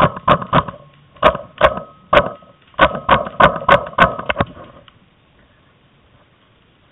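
Paintball marker firing about a dozen sharp shots in three quick bursts, stopping after about four and a half seconds.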